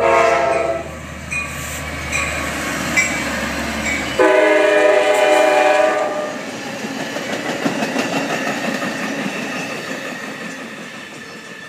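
Amtrak California passenger train passing: the diesel locomotive sounds its horn briefly at the start and again for about two seconds a few seconds in, with the engine rumbling. Then the bi-level cars roll by with a steady rumble that slowly fades.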